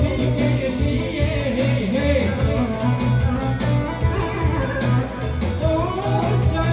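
Albanian pop music played live by a band, with singing over a steady, repeating bass beat.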